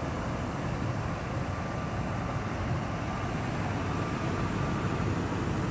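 Steady low rumble of background noise with a faint steady high whine.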